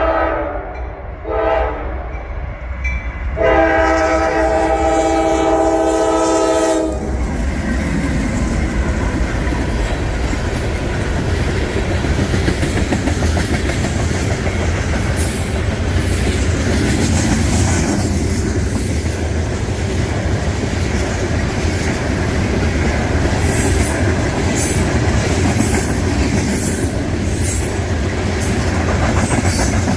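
Freight locomotive air horn sounding three blasts, two short and then one held about three and a half seconds, as the unit train approaches. The horn gives way to the steady rumble of the locomotives and cars passing close by, with wheels clicking over rail joints in a quick repeating pattern in the second half.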